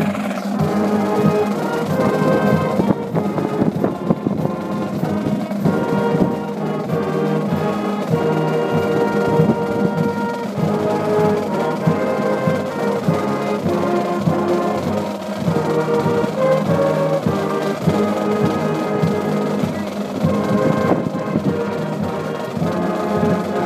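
High school band playing a school song, brass carrying the tune over steady drums.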